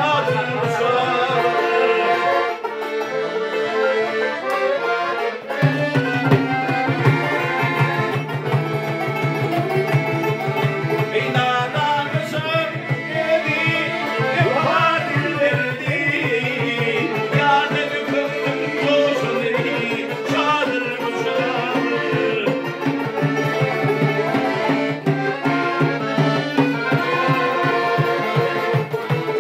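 Live Central Asian folk ensemble playing: accordion, a two-string dutar and a frame drum together, with a male bakhshi singing. A low steady bass comes in about five seconds in.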